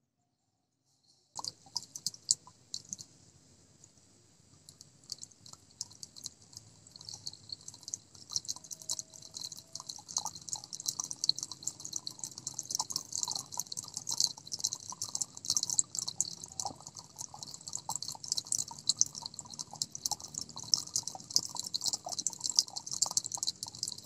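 Water from a small homemade fountain falling in thin streams from holes in a plastic box into a tub of water below, dripping and splashing. It starts as scattered drips about a second and a half in and becomes a busy, steady trickling and splashing from about eight seconds in.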